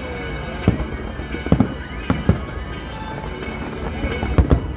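Fireworks shells bursting in the distance: a scattered series of booms, with a quick cluster of them near the end, over steady background music.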